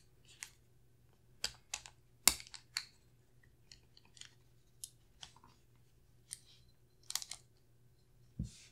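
Small metallic clicks and scrapes of a Springfield Armory EMP Ronin 9mm 1911 pistol's slide, barrel and recoil spring parts being handled and fitted together. The clicks come singly at irregular intervals, the sharpest about two seconds in.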